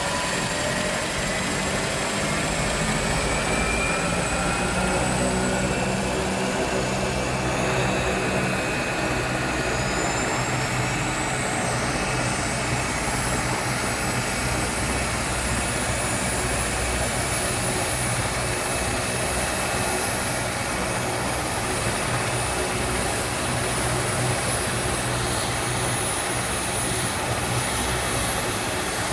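AgustaWestland AW139 helicopter running on the ground with its twin turboshaft engines and main rotor turning, ready for take-off. A turbine whine rises in pitch over the first several seconds, and a high whine climbs slowly through the second half over a steady low rotor beat.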